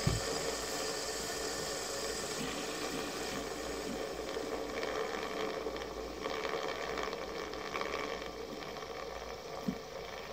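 Two fidget spinners spinning, their bearings giving a steady whirring hiss. A soft knock comes right at the start and another short one near the end.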